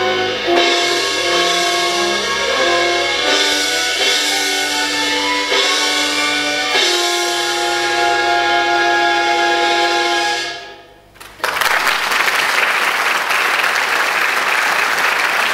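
Orchestral accompaniment playing the closing bars of a musical-theatre ballad, with long held chords that die away about ten and a half seconds in. After a brief pause, an audience breaks into steady applause.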